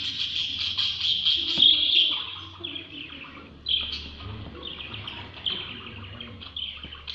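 Budgerigars chirping and warbling in a fast, dense chatter, loud for about the first two seconds and then thinning out into separate short chirps that slide downward.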